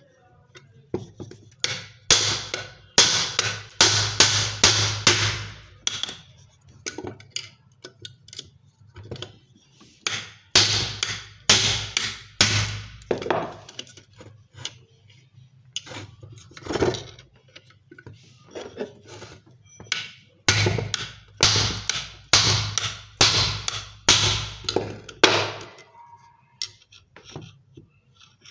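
A hammer striking a chisel against the rivets of a washing machine spinner motor's metal end cover, cutting them to open the motor. The sharp metallic blows come in three runs of about two a second, with pauses between.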